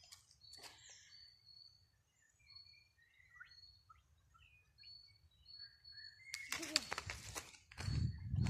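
Small wild birds singing: repeated short, high whistled notes and scattered chirps. From about six seconds in, sharp crackling and rustling break in, and near the end a loud low rustling noise takes over.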